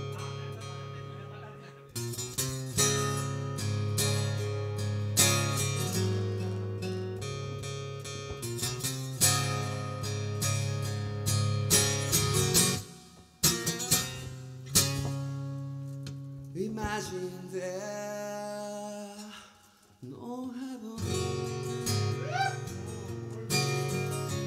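A live band playing a song led by strummed guitar, with sustained chords and repeated strokes. The sound thins out briefly about halfway through and nearly drops away just before the last few seconds, then the full band comes back in.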